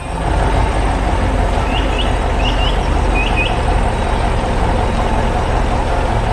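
Heavy truck engine running steadily with a low rumble, with a few short high chirps over it between about two and three and a half seconds in.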